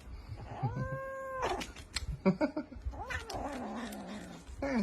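A cat yowling: a short, even-pitched cry about half a second in, then a longer, lower cry that slides down in pitch, with a few clicks in between.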